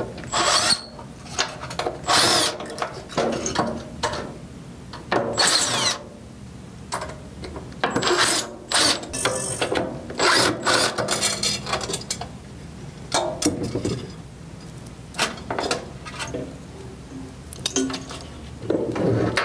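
Milwaukee M18 cordless drill running in short, irregular bursts, backing out the fasteners that hold the ballast components in a metal light-fixture housing, with knocks from the metal parts being handled.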